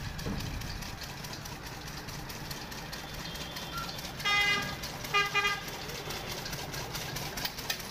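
A vehicle horn sounds twice, a blast of about half a second followed a moment later by a shorter one, over a steady background of road traffic.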